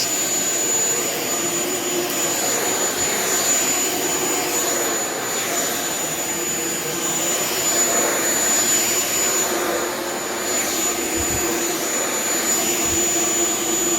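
Shark Vertex HZ2002 corded stick vacuum running steadily while vacuuming carpet: an even motor rush with a thin, steady high whine over it.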